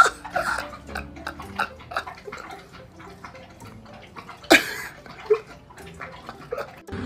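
A dog lapping water with its tongue: quick, irregular wet slurps several times a second, with a louder splashy burst about four and a half seconds in.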